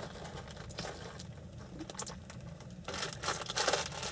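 Plastic food wrapper crinkling as it is handled: a few faint rustles at first, then steady crackling from about three seconds in.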